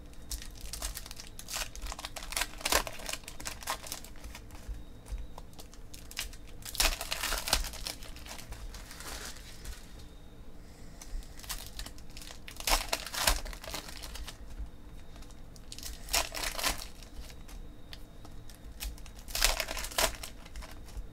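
Foil trading-card packs being torn open and crinkled by hand, in repeated bursts every few seconds, with short ticks of cards being handled in between.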